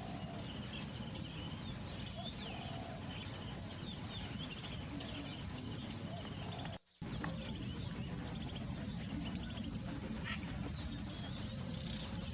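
Small birds chirping and trilling in quick, overlapping calls over a steady low background rumble. The sound cuts out completely for a fraction of a second a little past the middle.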